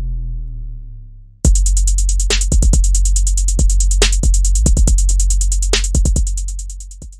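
Electronic intro music: a deep falling tone fades out, then about a second and a half in a sudden hit starts a drum-machine beat over a deep sustained bass, with fast even ticks and heavier hits, fading out near the end.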